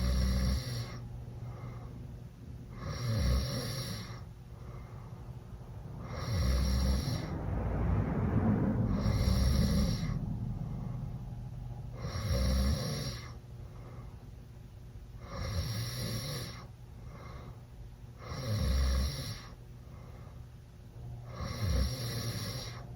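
Teenage boy snoring loudly through an open mouth after drinking, about one snore every three seconds, eight in all, with one longer, louder snore around the middle.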